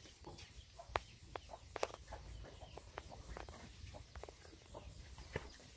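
Chickens clucking faintly in short scattered calls, with a few sharp clicks, the loudest about a second in and just before two seconds.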